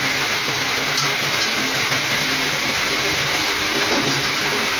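Pneumatic die grinder with a round buffing wheel running steadily with a constant hiss, the air tool used to buff the rubber of a damaged tyre before a section repair.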